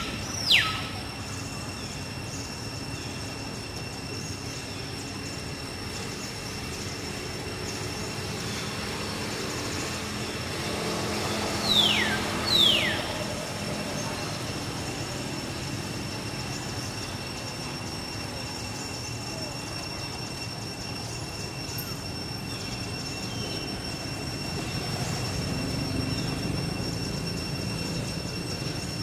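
Outdoor ambience with a steady high whine holding two pitches. It is broken by two pairs of quick, sharp squeals falling steeply in pitch, one pair right at the start and another about twelve seconds in.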